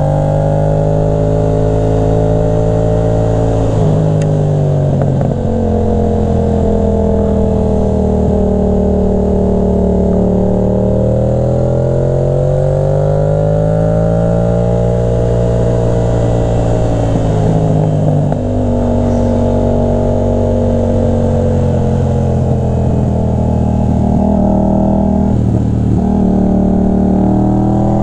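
Yamaha motorcycle engine heard from the rider's seat, pulling uphill in third and fourth gear. Its pitch rises and falls with the throttle and drops suddenly at a couple of gear changes, about four seconds in and again past the middle.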